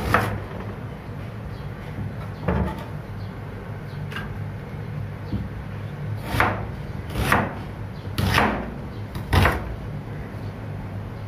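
Chef's knife slicing an onion into thick slices and knocking down onto a cutting board: six separate cuts, four of them close together in the second half, over a low steady hum.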